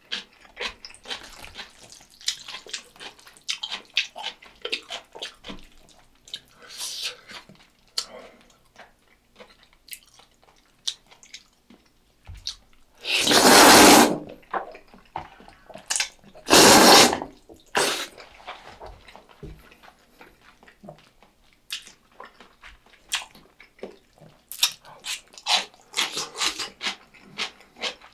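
Close-miked eating of jjajangmyeon, black bean sauce noodles: many small wet mouth smacks and chewing clicks, and two loud, long noodle slurps about halfway through.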